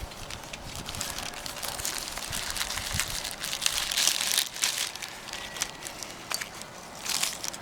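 Plastic bag crinkling and rustling as it is handled, in uneven crackles that are loudest about four seconds in.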